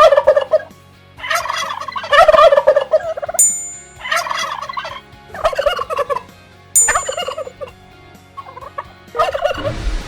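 An animal calling in about seven bouts of rapid, rattling calls, each lasting from under a second to nearly two seconds, with short pauses between them. Two brief high chimes sound between the bouts.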